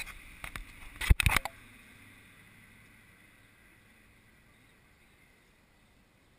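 Handling noise from the GoPro camera as it is moved toward the tyre: a cluster of sharp knocks and rubs in the first second and a half, then near silence.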